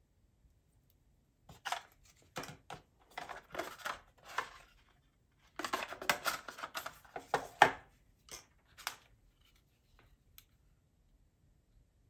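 Hands handling unboxing packaging: a white cardboard inner box and plastic parts rustle and scrape in irregular bursts with a few sharp clicks, stopping about nine seconds in, followed by a couple of faint ticks.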